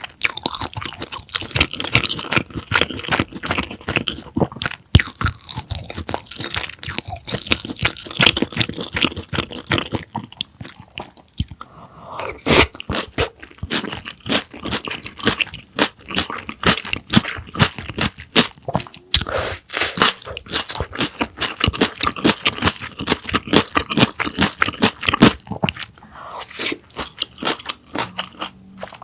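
Close-miked chewing and crunching of a breaded, deep-fried pork cutlet (donkatsu), with dense irregular crackles and one especially loud crunch about twelve seconds in.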